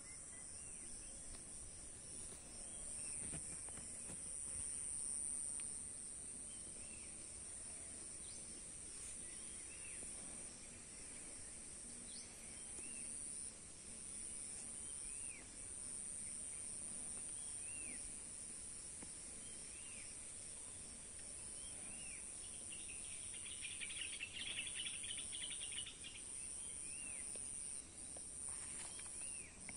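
A steady, high-pitched insect chorus, with a bird repeating a short chirp every couple of seconds. A burst of denser, louder chirping comes about three-quarters of the way through.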